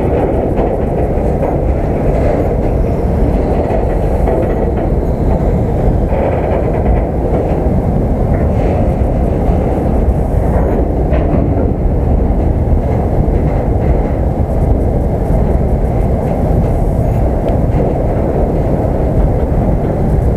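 Steady low rumble of a moving freight train, heard from on board one of its open wagons.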